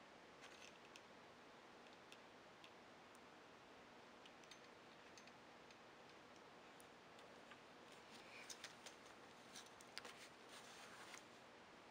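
Near silence with faint scattered clicks and scrapes, a few more in the last few seconds: a small handheld tube cutter being tightened and turned around a copper pipe.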